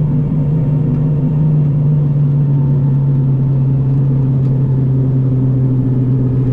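The BAe Jetstream 41's Garrett TPE331 turboprop engines and propellers running at low power while the aircraft taxis, heard inside the cabin as a steady propeller drone with a strong low hum.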